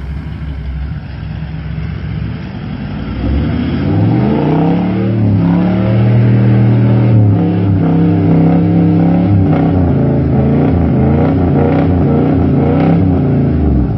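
Toyota LandCruiser 100 series engine revving hard under load as the four-wheel drive drives through a muddy bog hole. The revs climb about three seconds in and are held high and steady, then waver before the sound cuts off at the end.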